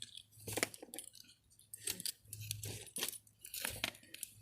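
Store merchandise being handled and shifted on a shelf: a series of light clinks and clicks, roughly a second apart.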